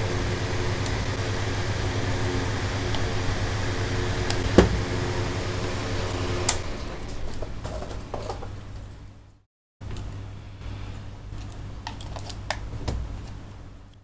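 A small electric fan hums steadily, with a couple of sharp clicks. About seven seconds in the hum fades and cuts out, then returns quieter with a few light clicks.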